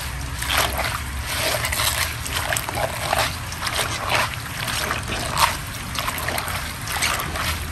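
Hands squeezing and kneading fresh sương sâm (Tiliacora triandra) leaves in a stainless steel bowl of water, with irregular splashes and squelches as the leaves release their juice and turn the water green.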